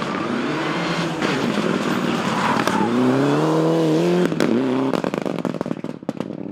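Mitsubishi Lancer Evolution rally car's turbocharged four-cylinder engine at full throttle, rising in pitch through the revs. A little over four seconds in the engine note drops away sharply, followed by a run of sharp cracks and pops as it comes off the throttle.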